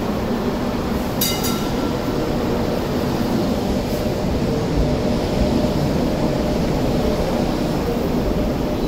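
Hong Kong MTR Light Rail vehicle moving off and rolling past at close range: a steady rumble of wheels and running gear. A short, high ringing tone sounds once about a second in.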